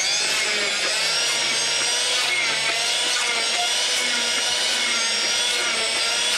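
Electric hand-held stick blender running, puréeing chopped tomatoes and vegetables in a plastic bucket: a steady motor whine that wavers slightly in pitch as the blade works through the food.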